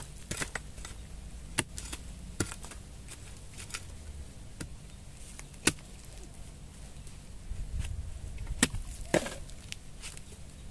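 Long-handled iron digging spade chopping into soil and roots at the base of a bamboo shoot to cut it free: about half a dozen sharp strikes at irregular intervals.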